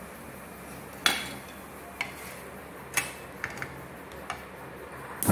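Spatula knocking against a tawa as a paratha is pressed and turned: a series of sharp clicks about a second apart, with a quick pair near the middle.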